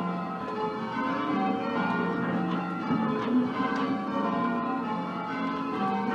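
A ring of ten church bells in F, tenor 13 cwt, cast by Mears and Stainbank, Gillett and Johnston and Whitechapel, being change rung. The bells strike in quick, even succession, their notes ringing on over one another.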